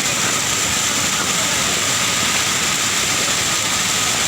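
Steady, loud rush of fast-flowing floodwater.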